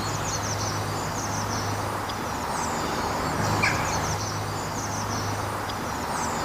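Small birds singing in repeated short, high chirping phrases over a steady background hiss and a low steady hum.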